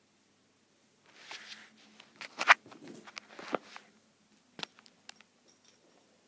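Close handling noise: rustling against fabric about a second in, then a cluster of sharp clicks and scrapes, with one more sharp click later and small ticks after it, as the dog shifts against the person and the phone is moved about close to the microphone.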